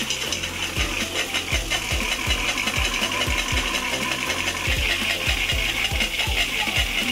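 Tap water pouring onto a small homemade water wheel with plastic spoon paddles and splashing into a plastic tub as the wheel spins, a steady rushing hiss with irregular low knocks a couple of times a second.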